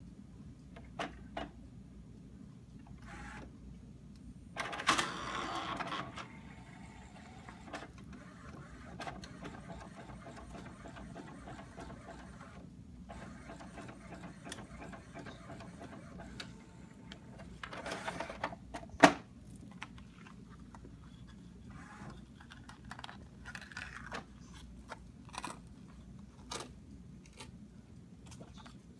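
Epson inkjet printer feeding and printing a card stock invitation. There is a loud whirr about five seconds in, then a run of steady, repetitive print-head passes, and another whirr ending in a sharp clack around nineteen seconds in as the card comes out. Light paper rustling and handling follow.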